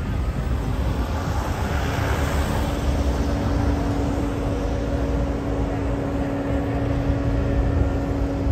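Street traffic: a passing vehicle swells to its loudest about two seconds in, then a steady engine hum carries on over the low rumble of traffic.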